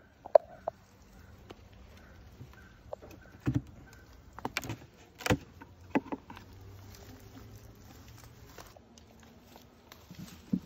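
Wooden hive frames and a metal hive tool knocking and scraping against a wooden beehive box, a handful of sharp knocks and clicks scattered through.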